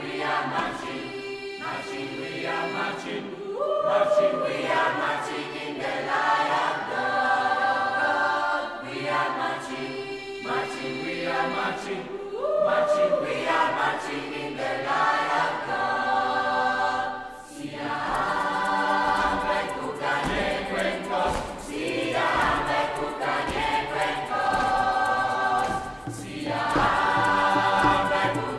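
A mixed school choir singing in several voice parts. The sound thins out briefly about two-thirds of the way in, then comes back fuller, with a low beat underneath.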